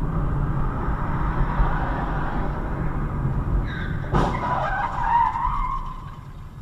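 Car road and engine noise picked up by a dashcam. About four seconds in comes a sharp bang, then a wavering screech for about two seconds that fades away: the sound of a road collision.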